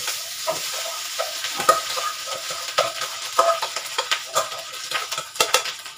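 Leftover cooked rice sizzling as it is tipped from a steel pot into a hot frying pan, with frequent small knocks and scrapes of metal against the pan.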